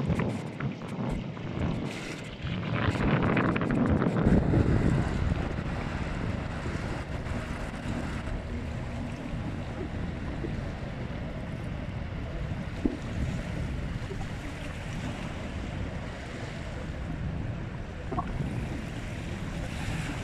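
Wind buffeting the microphone in gusts for the first few seconds, then a steady wash of wind and water noise as a large container ship passes close by.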